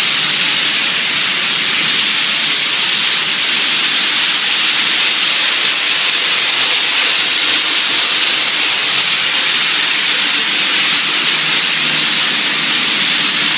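Steady, loud hiss of an automatic spray painting booth in operation: compressed-air spray guns and the booth's air handling running continuously.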